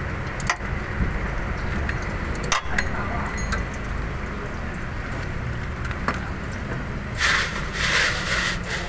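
Hand-tool work on a car engine: a few sharp metal clicks, then about seven seconds in a rough scraping for a second and a half, over a steady low rumble.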